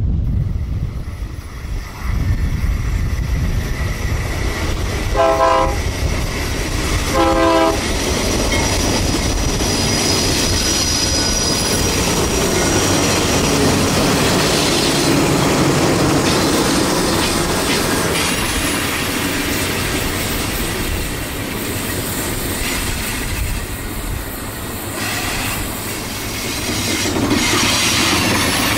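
A BNSF freight train's diesel locomotive sounds two short horn blasts about five and seven seconds in as it approaches. Then the locomotive passes close by, followed by the steady noise of double-stack container cars rolling past on the rails.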